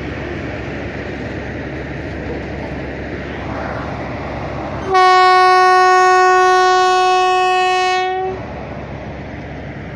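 Indian Railways passenger train rolling along with a steady rumble; about five seconds in, the electric locomotive's horn sounds one long, loud blast of about three seconds, then cuts off and the train rumble carries on.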